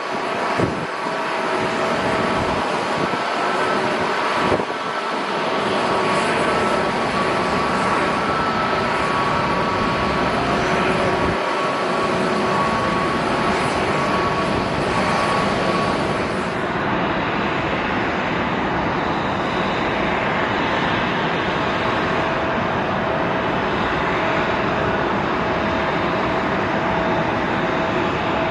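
Twin-engine jet airliners on final approach: a steady engine roar with high whining tones. About two-thirds of the way through, the sound changes abruptly to a second approaching jet, a Boeing 777.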